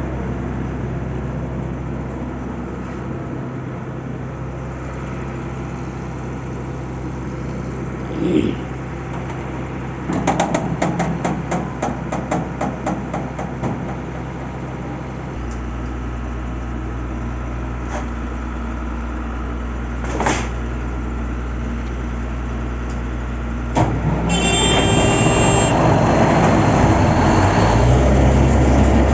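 A steady low engine hum with a couple of knocks and a run of rattling clicks. Then, about 24 s in, the diesel engine of a large portable borewell air compressor (a CPS 1200-330) starts up with a sudden rise in level and keeps running, belching black exhaust smoke.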